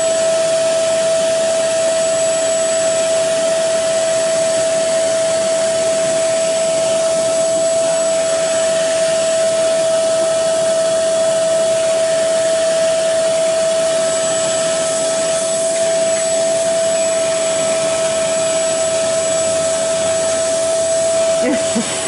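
Portable carpet cleaner's suction motor running steadily, a loud constant whine over the rush of air drawn through its hose and hand tool as it sucks up water.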